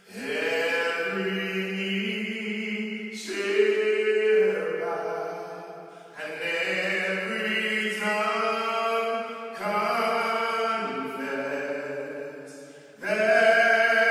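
Slow closing music of long held chords, each lasting about three seconds before moving to the next.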